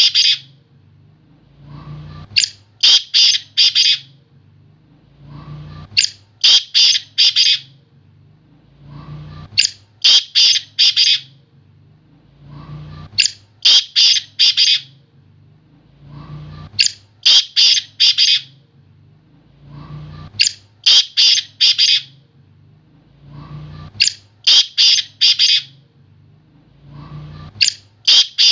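Black francolin calling over and over: each phrase is a faint opening note and then about four loud, harsh grating notes, repeated at an even pace roughly every four seconds.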